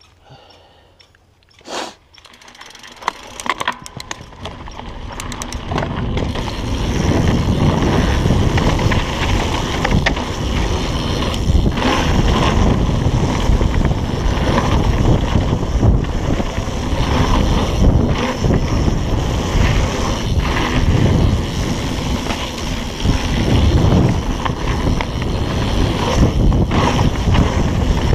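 Mountain bike rolling fast down a dirt trail: tyres rumbling over the dirt and wind buffeting the microphone, building up over the first several seconds as the bike gathers speed, then staying loud and steady.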